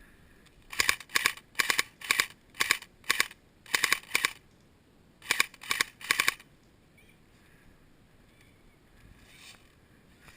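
Airsoft gun firing a string of about eleven sharp shots, roughly two a second, with a short pause after the eighth shot.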